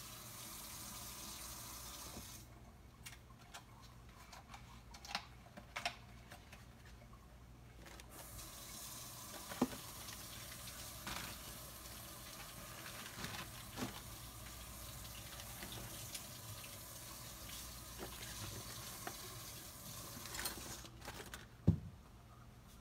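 Kitchen tap running off and on: the water stops about two and a half seconds in, runs again from about eight seconds and stops near the end. Scattered light knocks and clinks come through it, with a sharper knock near the end.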